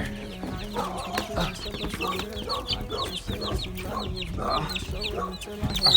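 A flock of chickens clucking and calling, with many short, high-pitched cheeps repeating several times a second throughout and rougher clucks between them. A steady low hum runs underneath.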